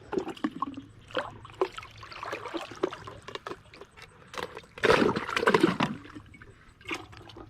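Water splashing and sloshing with scattered clicks and knocks as a just-caught black perch is handled; the loudest splash comes about five seconds in.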